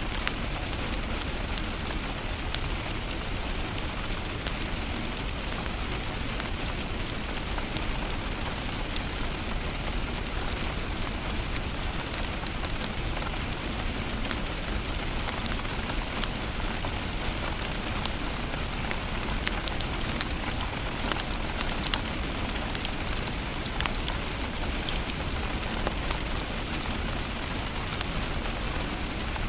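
Wood fire in a fireplace crackling: a steady hiss broken by irregular sharp pops and snaps, one of the loudest about two thirds of the way in.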